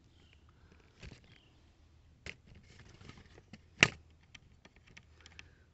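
Handling noise from a phone camera being moved and repositioned: scattered clicks and a few sharp knocks, the loudest nearly four seconds in.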